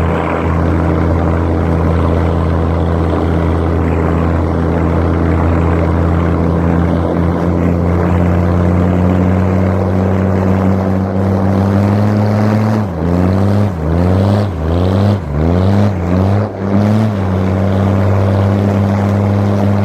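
Mercedes-Benz G-Class engine running steadily under load. About thirteen seconds in, its note dips and climbs back about five times in quick succession over some four seconds, then settles back to a steady pitch.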